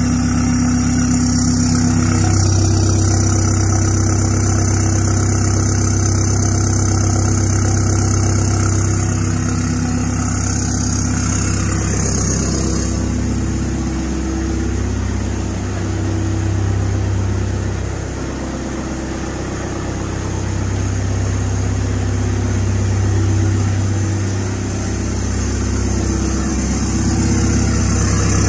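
Volkswagen Passat 2.0 CR TDI four-cylinder diesel idling steadily through a 3.5-inch straight-pipe exhaust.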